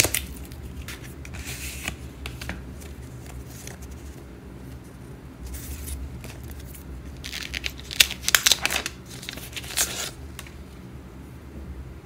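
Paper and card packaging handled and pulled open, rustling in several short bursts, the longest and loudest about two-thirds of the way in.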